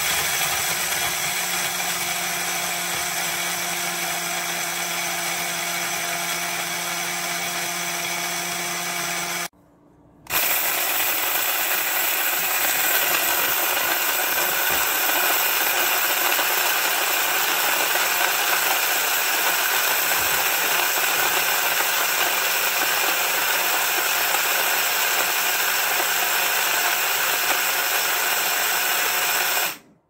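Oudisstech (Mamicooker) cordless rechargeable blade coffee grinder running, its stainless steel blade grinding coffee: a steady motor whir. It stops about nine and a half seconds in, starts again a moment later and runs until it cuts off just before the end.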